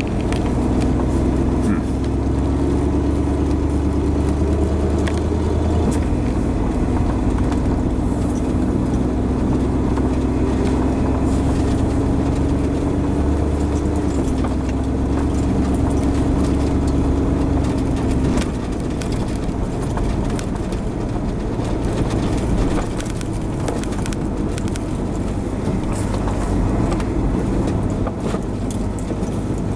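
Vehicle driving: a steady engine and road rumble, with an engine hum that climbs slowly in pitch, then drops away about eighteen seconds in, leaving a quieter rumble.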